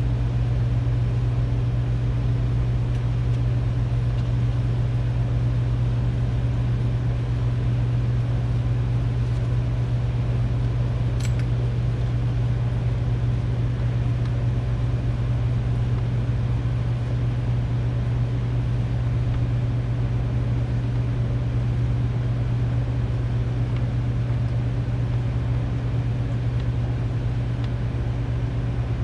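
A steady low mechanical hum of running machinery, unchanging throughout, with one faint click about eleven seconds in.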